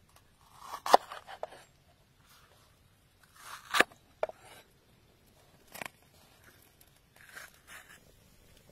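Large kitchen knife cutting through yellow bell peppers on a wooden chopping board: several sharp chops a second or two apart, some with a crunch leading into them.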